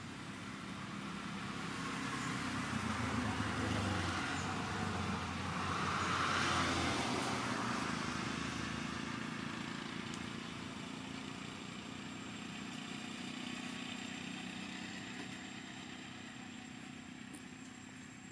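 A motor vehicle passing on a nearby road: its engine and tyre noise grow louder to a peak about six seconds in, then slowly fade away.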